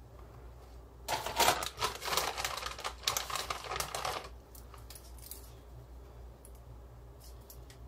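Plastic ravioli bag crinkling and crackling for about three seconds as a hand rummages in it, followed by a few faint light clicks.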